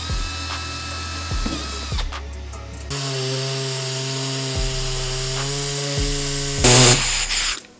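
Power tools over background music with a beat. A cordless drill whines and drops in pitch about two seconds in. Then an air-powered die grinder runs steadily, cutting a round hole in the bumper cover, with a loud burst of noise near the end.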